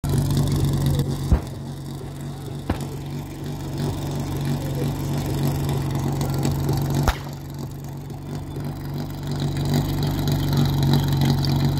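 Portable fire-sport pump's petrol engine running steadily. Three sharp knocks cut in, about a second and a half in, near three seconds, and about seven seconds in. The engine grows a little louder toward the end.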